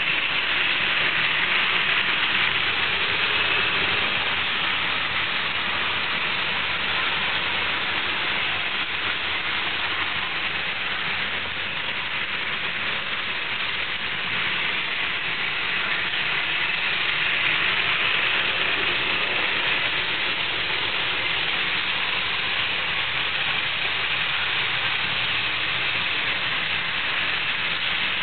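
Model trains running round a layout: a steady, even running noise of wheels on track and small electric motors, with no breaks.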